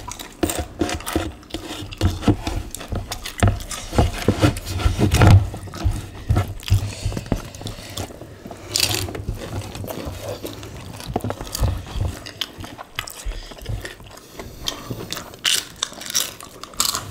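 Two people eating by hand: irregular clicking and crunching of chewing, with wet smacks of fingers working chilli squid sambal and rice against a metal tray.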